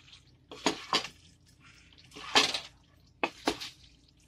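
A cooking spoon stirring and scraping through pasta, chicken and vegetables in a pan, in three short bursts of strokes, the middle one loudest.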